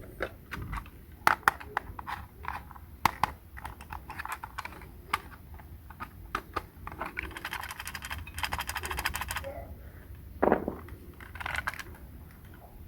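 Small plastic toy pieces being handled, with irregular light clicks and taps and a fast run of ticking for about two seconds past the middle.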